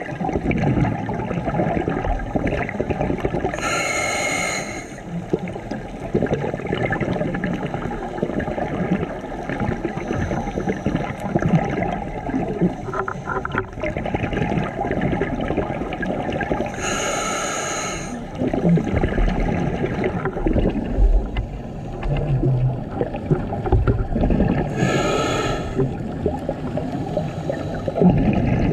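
Scuba diver's breathing through a regulator, heard underwater: three short hissing breaths, with a steady bubbling and crackling of water between them.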